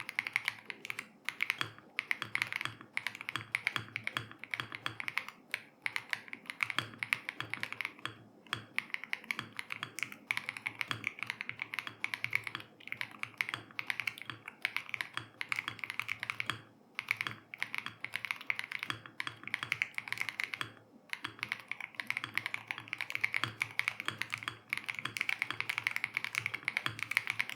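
Neo80 CU mechanical keyboard with Mango Pudding switches and no internal foam, being typed on in fast runs of keystrokes broken by short pauses.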